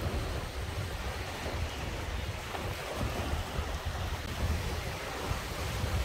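Sea surf washing over and around coastal rocks: a steady, continuous rushing wash with a low rumble, with no single wave crash standing out.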